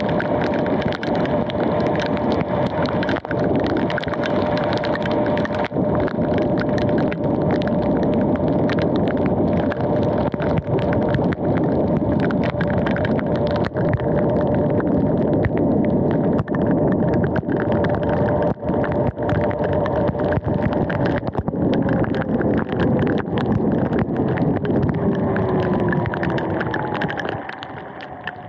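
Electric dirt bike's motor whining at a steady pitch over the hiss of tyres on a wet road, with frequent crackles. Near the end the whine falls in pitch and the sound dies down as the bike slows.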